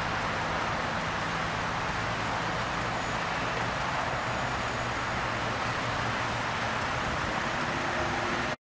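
Steady roar of freeway traffic with a low engine hum underneath. It cuts off abruptly near the end.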